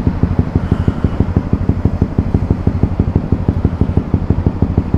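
2018 Honda CB150R's single-cylinder engine idling steadily, a quick, even putter.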